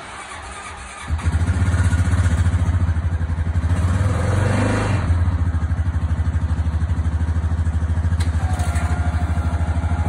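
Four-wheeler (ATV) engine starting up about a second in, revving briefly, then idling with a steady rapid pulse.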